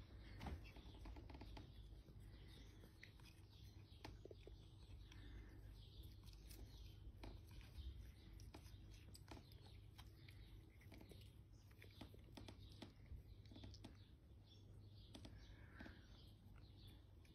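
Faint, irregular soft clicks and crunches of cats chewing and tearing blades of cat grass, with faint bird chirps in the background.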